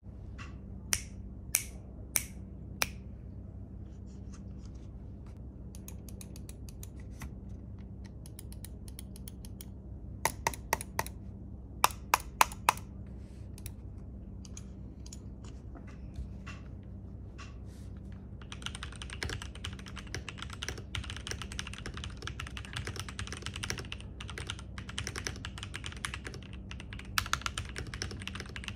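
Keydous NJ80 mechanical keyboard with lubed NovelKeys Cream switches on a brass plate in a plastic case, being pressed and typed on. It opens with a handful of loud single key strokes about half a second apart, then scattered presses and two quick bursts of strokes, and from about two-thirds of the way in turns to steady, fast typing.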